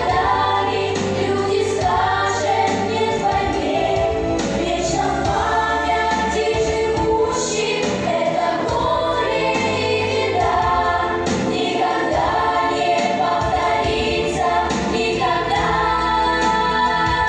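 A children's choir sings a song in unison over a steady instrumental backing track with a held bass line.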